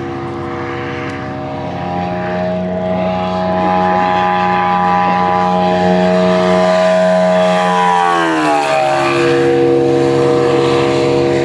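Engine and propeller of a 12-foot-wingspan radio-controlled P-47 with a 450 cc engine, flying by. A steady drone grows louder about two seconds in, then drops in pitch about eight seconds in as the plane passes.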